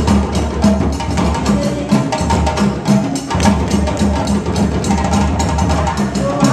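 Live hand-drum ensemble playing a fast, steady dance rhythm.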